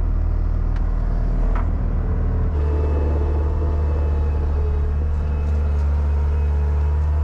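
Skid steer loader's diesel engine running steadily, heard from inside the operator's cab; its drone changes note about two and a half seconds in and then holds.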